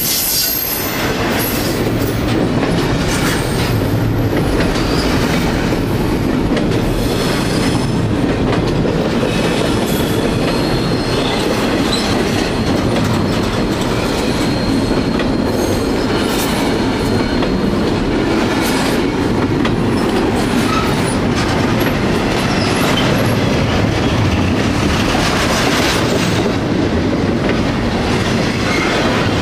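Double-stack container freight train of well cars rolling past close by at speed: a steady roar of steel wheels on the rails, with clicks over the rail joints and a faint high wheel squeal at times.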